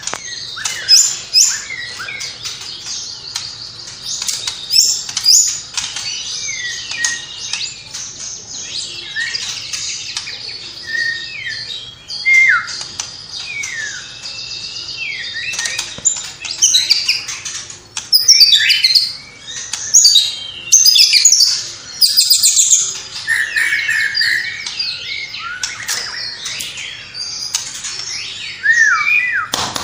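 White-rumped shama (murai batu) in full, continuous song: a fast, varied string of chirps, sharp whistles and quick rising and falling notes, laced with mimicked calls of other birds such as house sparrow and lovebird.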